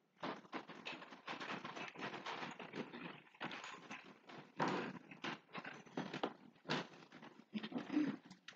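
Many small clicks and rustles from a congregation drinking from individual communion cups and setting them down.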